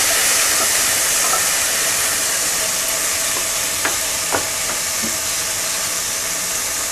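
Chopped vegetables and tomato sizzling steadily in hot oil in a non-stick pan, stirred with a wooden spatula at first. A couple of sharp clicks about four seconds in.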